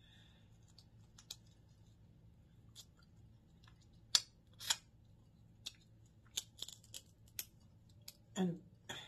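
Crab leg shells cracking and snapping by hand in a series of short, sharp clicks with quiet gaps between them, the loudest two about four and a half seconds in.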